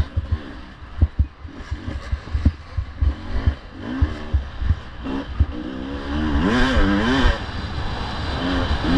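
Off-road racing dirt bike engine revving up and down, loudest about six to seven seconds in, over repeated low thumps and knocks.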